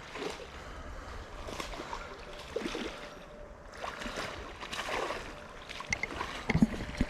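Shallow creek water sloshing and splashing unevenly, with a few light knocks near the end.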